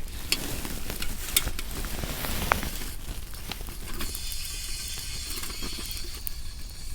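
Food sizzling in a pan over a campfire, with scattered sharp crackles. The hiss grows steadier and stronger about halfway through.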